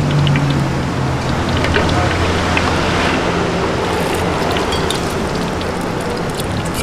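Egg batter frying in hot oil in a wok: a steady sizzle that swells about halfway through as fresh batter is poured in, over a low steady rumble.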